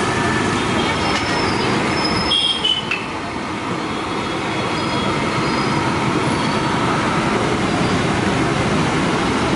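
Masala wadas deep-frying in a large kadai of hot oil, the oil sizzling and bubbling steadily. A short high-pitched squeal about two and a half seconds in.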